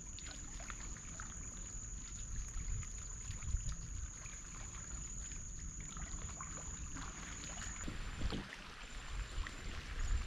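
Water sloshing and lapping against the hull of a wooden longboat as it is paddled along a bank of nipa palms, over a low rumble. A steady high-pitched whine stops suddenly about eight seconds in.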